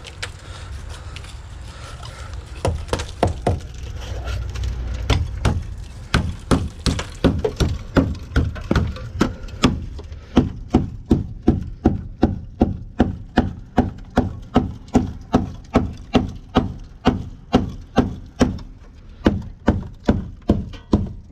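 Repeated hand-struck blows on the rusted-through sheet steel of a floor panel, knocking out rotten metal. Irregular at first over a low rumble, settling about halfway in into a steady rhythm of two to three blows a second.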